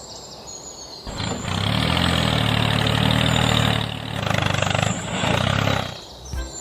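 An engine running for about five seconds: a low, steady hum that comes in about a second in, dips briefly about four seconds in, then fades out near the end.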